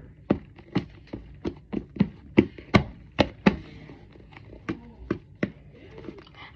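A squishy foam toy being squeezed and tapped close to the microphone, giving a run of sharp, irregular clicks and taps about three a second that stop about a second before the end.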